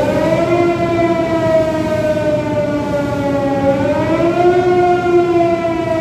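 EOT crane hoist drive running the hook down, a loud steady whine that sags in pitch and climbs again about four seconds in. The hoist keeps running because the rotary limit switch has not yet cut it off.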